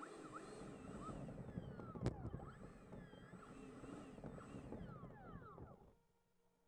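The electric ducted fan of a Freewing Avanti RC jet running at low throttle as the plane taxis over asphalt, its whine rising and falling with the throttle, with a single sharp knock about two seconds in. It cuts off near the end.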